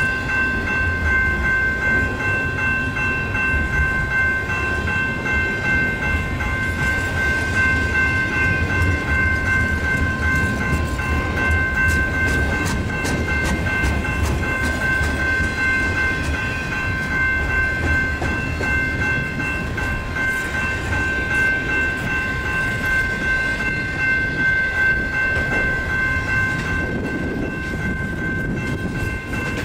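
Slow double-stack intermodal freight train rolling past with a steady low rumble and scattered wheel clicks, while the level crossing's warning bell rings steadily.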